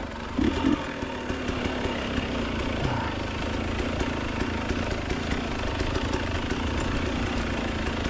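Enduro motorcycle engine running steadily.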